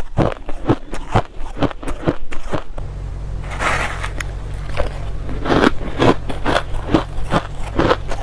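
Close-miked chewing of crushed ice, crisp crunches about three a second. About three seconds in a steady low hum sets in, and the crunching of shaved ice taken from a spoon goes on over it.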